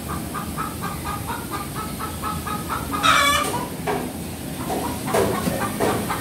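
Caged chickens clucking in a quick run of short notes, about four or five a second. About three seconds in, one loud, longer call rises above them.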